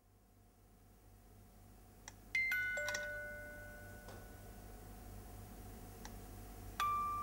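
Bell-like chime notes: three struck in quick succession about two seconds in, each lower than the last and each ringing on for several seconds, then another near the end, over a faint low hum.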